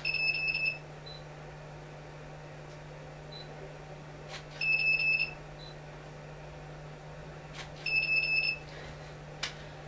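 Electronic beeping: three short bursts of quick high-pitched beeps, about four seconds apart, over a steady low hum.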